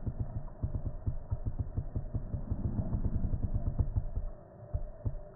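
Cloth strips of a homemade car-wash curtain brushing and rubbing against the microphone: a fast run of low thumps for about four seconds, then two more thumps near the end.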